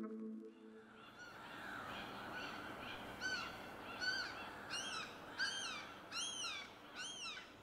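A bird calling over and over, about one call every two-thirds of a second, each call rising and then falling in pitch, the calls growing louder toward the end, over a faint steady hiss.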